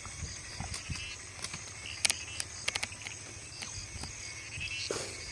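Steady high-pitched chirring of insects, with a low rumble underneath. A few sharp clicks come about two seconds in, the first of them the loudest sound.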